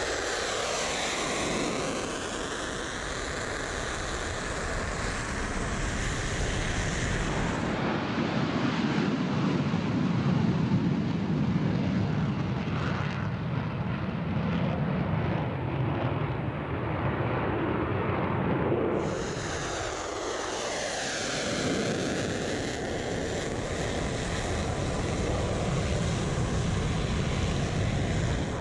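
F-35A Lightning II fighter jets taking off and climbing away, the roar of the single turbofan engine with sweeping, phasing tones as each jet passes and recedes. The sound cuts abruptly to another takeoff about 8 seconds in and again about 19 seconds in.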